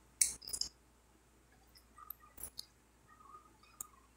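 Wet lip smacks as food is sucked off the fingers, a few sharp ones in the first second, then fainter chewing and mouth clicks while eating rice with the hands.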